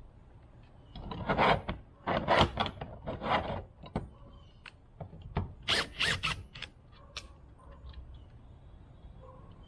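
Hand work on metal latch parts: a run of rough scraping strokes, a pause, a second short run, then light clicks and taps.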